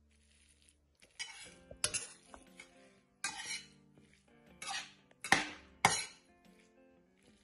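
A metal spoon scraping and knocking against a stainless steel pan as mashed cauliflower and cabbage are stirred, in a run of separate strokes starting about a second in, the loudest two a little past the middle.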